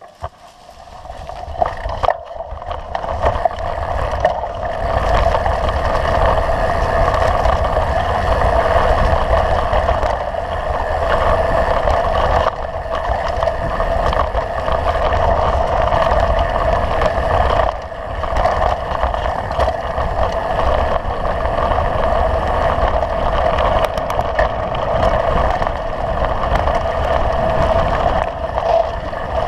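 Wind rushing over an action camera's microphone on a mountain bike riding down a dirt track, with tyre rumble and rattle on the gravel. It builds up over the first two seconds as the bike picks up speed, then stays steady.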